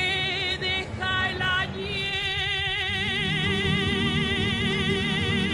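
Singing with guitar accompaniment: a few short sung notes, then a long held note with a wide vibrato.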